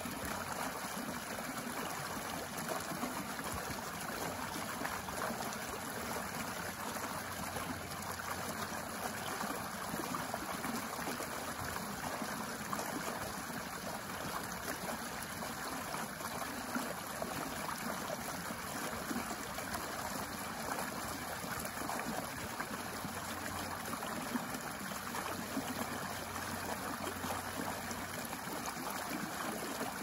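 Small, shallow stream running steadily, its water splashing down a short cascade over stones into a pool.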